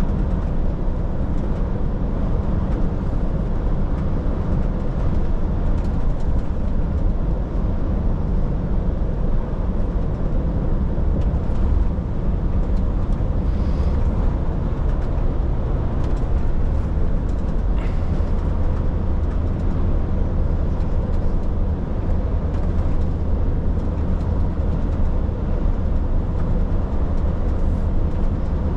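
Truck driving on the road: steady engine drone and tyre rumble, strongest at low pitch, holding even throughout.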